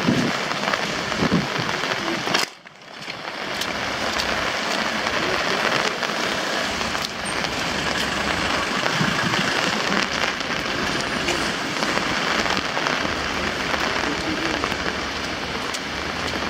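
Steady rain falling, an even hiss with scattered ticks of drops striking. The sound drops out briefly about two and a half seconds in.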